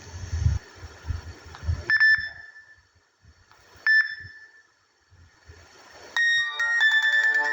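Nokia N95 ringtones playing one after another. The end of one tune, then two short high electronic pings about two seconds apart, then the next ringtone's melody starting with bright chiming notes about six seconds in.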